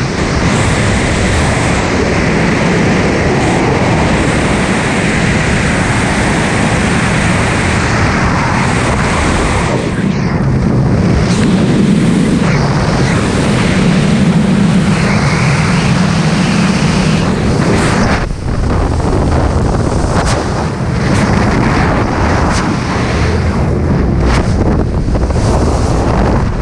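Skydiving freefall wind rushing over a GoPro camera's microphone: a loud, steady buffeting of air, with a few brief dips in level about two-thirds of the way through.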